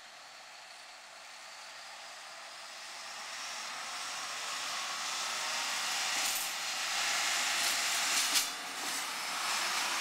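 Redhen diesel railcar approaching and passing close by, its running noise growing steadily louder, with a couple of sharp clicks about six and eight seconds in.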